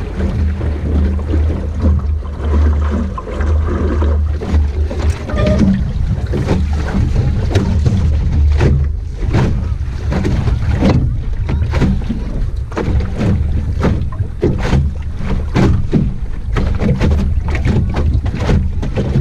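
Wind rumbling on the microphone of a camera mounted on an Optimist sailing dinghy under way, with frequent short slaps of water against the hull.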